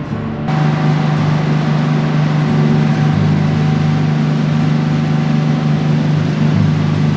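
Steady low drone of the Isle Royale Queen IV passenger ferry's engines, heard on board while under way, with an even hiss over it.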